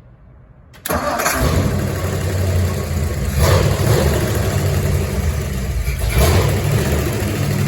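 1957 Ford Thunderbird V8 cold start: about a second in the engine cranks briefly, catches and runs with a steady low rumble, getting louder for a moment twice.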